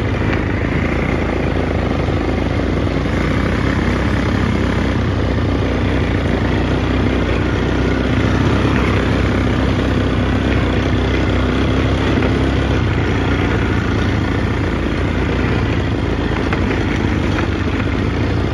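ATV (quad bike) engine running steadily as the quad is ridden along a dirt trail, heard from the rider's seat.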